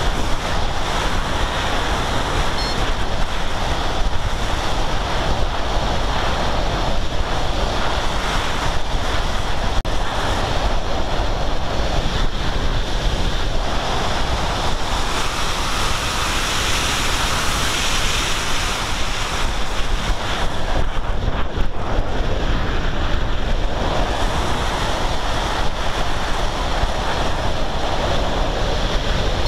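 Steady rushing wind buffeting the microphone of a camera carried on a flying Sky Climber aircraft, rising and falling a little in strength.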